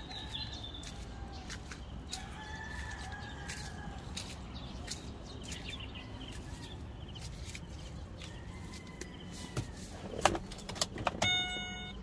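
Chickens calling in the background over a steady low hum. About ten seconds in come a few knocks, then a short electronic beeping chime from the car's dashboard as the ignition is switched on.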